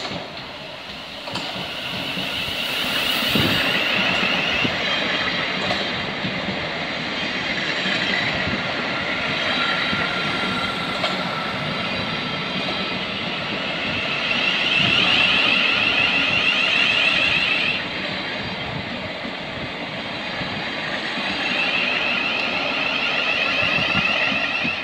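Thameslink Class 700 electric multiple unit running along the platform: a continuous rumble of wheels on the rails, with a high squeal that swells and fades three times, about two seconds in, in the middle and near the end.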